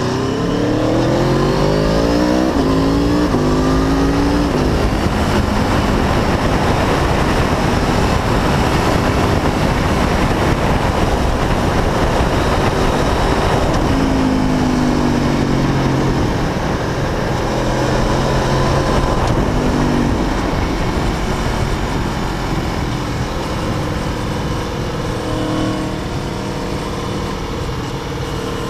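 Aprilia Tuono V4 motorcycle engine accelerating hard through several gears, its pitch climbing and dropping back at each shift, then heavy wind rush at speed with more bursts of acceleration and easing off.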